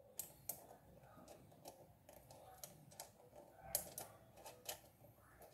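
Faint, irregular small clicks and taps of a nut and washers being fitted by hand onto the kneading-pulley shaft of a Mondial Premium NPF-51 bread maker.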